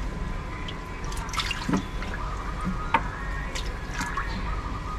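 Water dripping and small splashes, scattered drops over a steady low hum.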